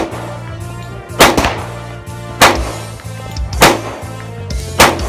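Glock 21 .45 ACP pistol firing slow, evenly paced single shots, about one every 1.2 seconds, over background music.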